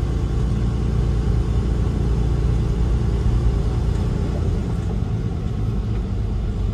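Road-train prime mover's diesel engine running as the truck drives along, heard from inside the cab as a steady low rumble.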